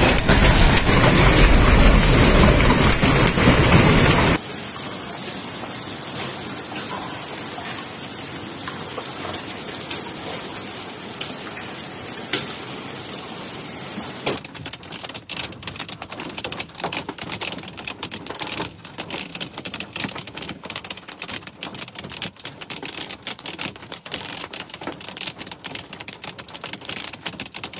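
Hail and heavy rain pelting down as a dense, steady rush of impacts. It is loud for the first few seconds and drops suddenly to a quieter wash about four seconds in. From about fourteen seconds in, a thick patter of separate sharp clicks can be heard as hailstones strike the ground.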